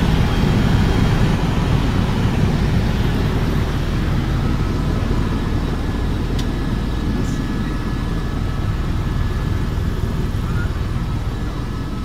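Helicopter in flight heard from inside the cabin: a steady deep rumble of engine and rotor, with a faint steady whine above it.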